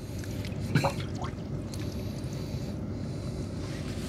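Steady low rumble on a small fishing boat on the river, with a light knock about a second in.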